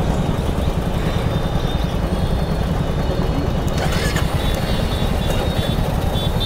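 Steady wind buffeting on the rider's microphone and the rush of a motorcycle ridden at highway speed, a Royal Enfield Hunter 350 with its single-cylinder engine running under the wind noise.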